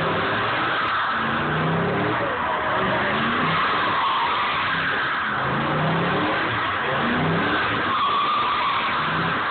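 A Chevrolet Silverado single-cab pickup doing donuts: its rear tyres squeal and skid without a break while the engine revs up and down.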